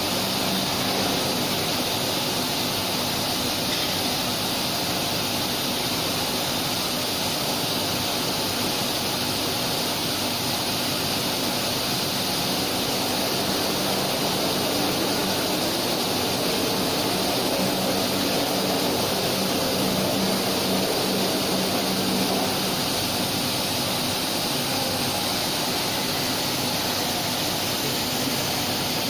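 Five-axis CNC tool grinder running a grinding cycle: a steady rushing noise with a faint even hum underneath.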